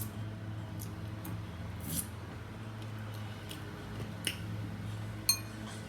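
Close-up eating sounds: a handful of small clicks and squishy crackles about a second apart as food is handled and chewed, over a steady low hum.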